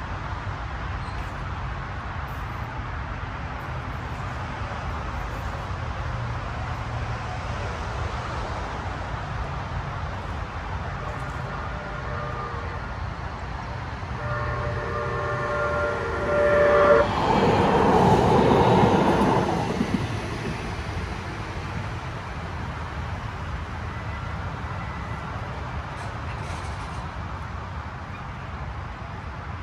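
Train rolling through a grade crossing with a steady low rumble. About halfway in, a train horn sounds one chord of several notes held for about two and a half seconds. A loud rushing noise follows it, swelling and fading over about three seconds.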